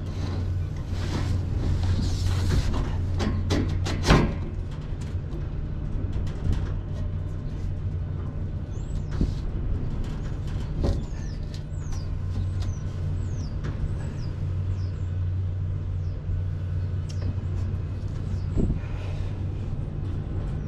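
Clicks and knocks of a galvanised steel side sheet being handled and fitted against a wagon's poly floor, with one louder knock about four seconds in, over a steady low machine hum. A few short high chirps come in the middle.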